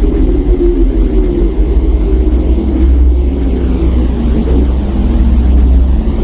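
A space-sound drone: a deep, steady rumble under a wavering, fluttering hum, with faint whistling sweeps above it. It is typical of radio emissions from planets converted into audible sound.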